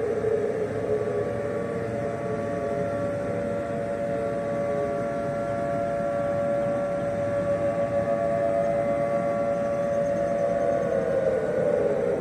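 Outdoor tornado warning siren sounding a steady wail of several close tones, holding its pitch and then winding down near the end, over a low rushing noise.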